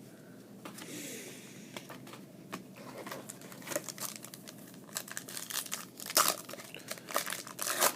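A Bowman Platinum baseball-card pack wrapper being torn open and crinkled, with quick sharp crackles that get louder in the second half.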